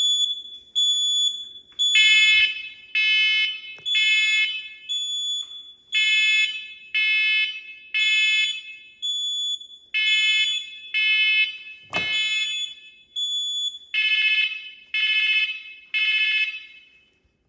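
Fire alarm horn sounding the temporal-three evacuation code: three half-second buzzy blasts about a second apart, then a pause, repeated throughout. A higher single-tone alarm beeps in each pause, and a sharp knock comes about twelve seconds in.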